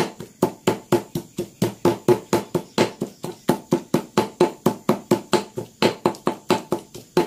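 Pestle pounding chilies, shallots, garlic and lime leaves in a mortar into a spice paste. Rapid, even strokes, about five a second, each a sharp knock with a brief ring.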